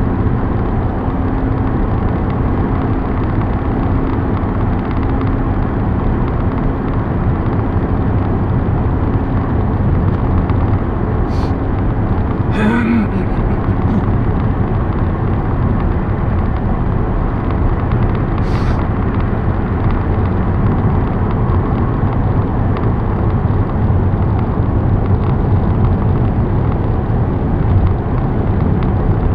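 Steady road and engine noise inside a car driving on a highway, with a few brief clicks near the middle.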